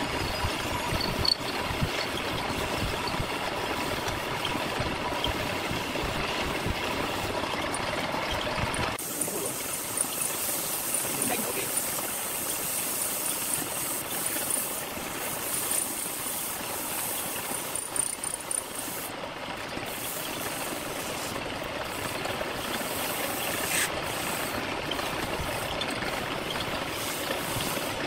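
Wood lathe running, its electric motor humming steadily, while a hand tool cuts the spinning wooden spindle. About nine seconds in the sound changes abruptly to a thinner, steady hiss of sandpaper pressed against the turning wood.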